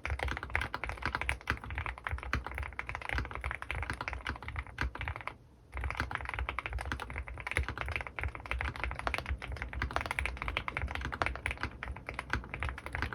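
Fast typing on an Owlab Mr.Suit custom mechanical keyboard with Krytox-lubed Gateron North Pole switches and GMK keycaps: a dense, continuous run of keystroke clacks. There is a short pause of about half a second roughly five seconds in.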